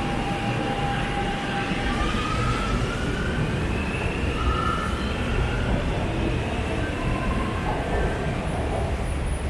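Shanghai Metro train pulling out of an elevated station: a low rumble of wheels and carriages, with the electric traction motors' whine rising in pitch as the train accelerates.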